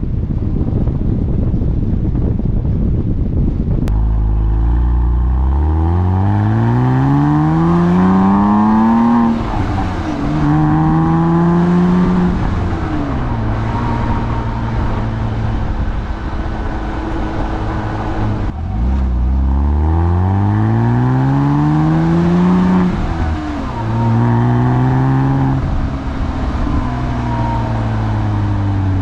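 2007 Porsche Cayman's 2.7-litre flat-six accelerating hard through the gears of its five-speed manual: the engine note climbs in pitch, drops at each upshift and climbs again. Wind noise fills the first few seconds, and a second acceleration run starts abruptly about two-thirds of the way in.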